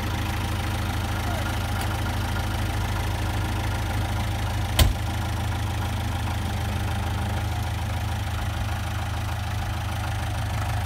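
Tractor diesel engine running steadily at low revs, with one sharp crack about five seconds in.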